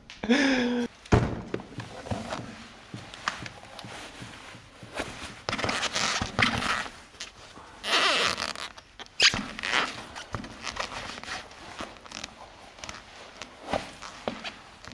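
Rustling, scraping and small clicks of shoelaces being pulled tight and tied on Saucony running shoes, with occasional light knocks of the shoes on a wooden floor.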